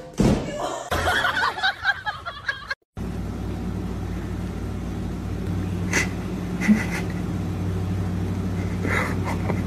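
A loud thump and rustling as a person drops onto a giant bean bag chair. After a sudden cut, a steady low mechanical hum runs on, with a few short clicks.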